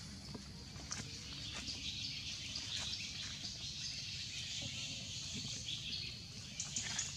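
Outdoor nature ambience: steady high-pitched insect buzzing with brief bird chirps over it.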